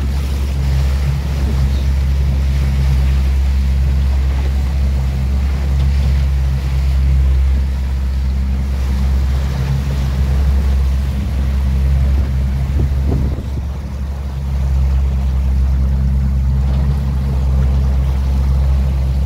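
Fishing boat's engine running steadily underway, a continuous low drone, with water rushing and splashing along the hull.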